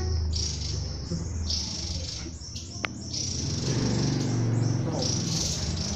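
Javan tesia calling: short, high, scratchy notes repeated about once a second. A sharp click comes near the middle, over a steady low rumble.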